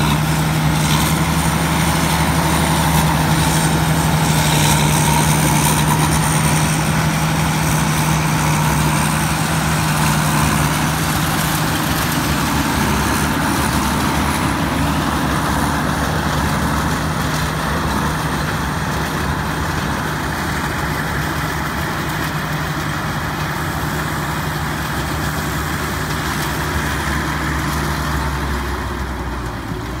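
Rice combine harvester's Hino 195 turbo diesel engine running steadily under harvesting load, a continuous drone with the rattle of the threshing machinery over it.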